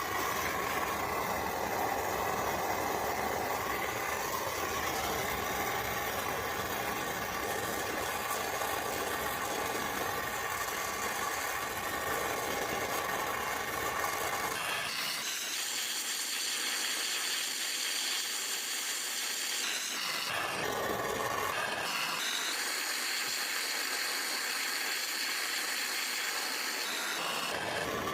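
Handheld gas torch hissing steadily as it heats a copper pipe fitting to solder a cap on. The sound thins out about halfway through and changes again a few seconds later.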